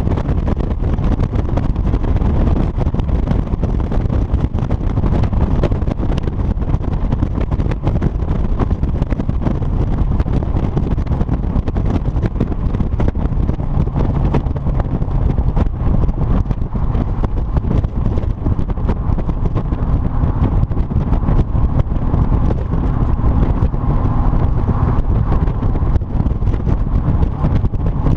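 Triumph TR7 V8's 3.9-litre V8 running through a single-bore exhaust, a steady low exhaust note with no revving, with wind buffeting the microphone.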